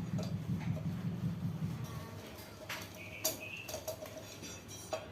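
Metal tools and engine parts clinking, a few sharp knocks in the second half, each ringing briefly. A low rumble runs under the first two seconds.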